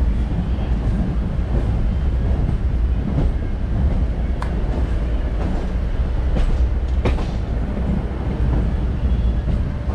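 Chennai MRTS electric suburban train running along the track: a steady, loud rumble of wheels on rail, with two sharp clacks about four and a half and seven seconds in.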